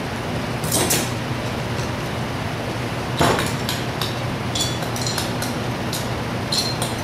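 Metal hand tools and small parts of a Zenoah G270RC two-stroke engine clinking and knocking during hand assembly. There are two louder knocks about one and three seconds in, then a run of light clinks, over a steady low hum.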